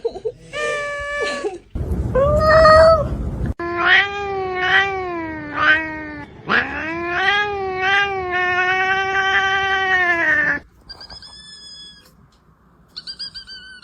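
Domestic cat yowling (caterwauling): a few short calls, then long, wavering drawn-out yowls that last several seconds each. Near the end come a few faint, short high-pitched chirps.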